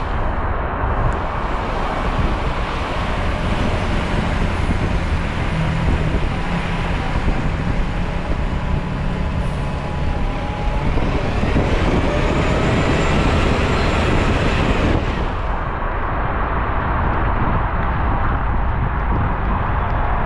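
Steady road and traffic noise from a car driving on rain-wet city streets: the hiss of tyres on wet pavement over a low engine rumble.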